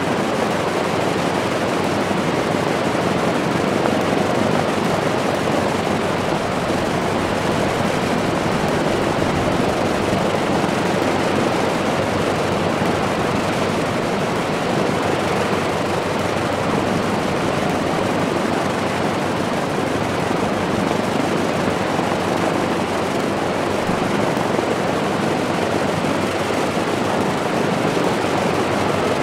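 Lockheed P-38F Lightning's twin Allison V-1710 liquid-cooled V-12 engines running steadily on a ground run, both propellers turning. The engine noise holds at an even level throughout.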